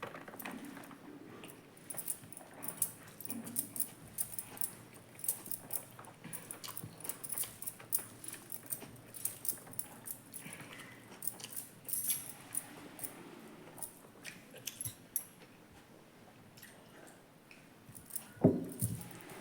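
Close-up chewing and mouth sounds of someone eating, with many short wet clicks and crunches, and one louder sound about a second before the end.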